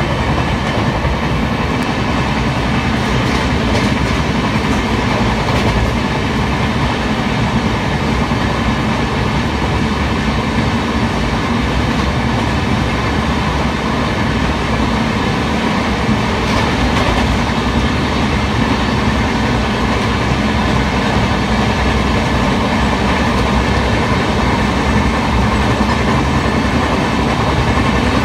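Two passenger trains running side by side on parallel tracks: a steady, loud rumble of wheels on rails and rolling coaches, with no let-up.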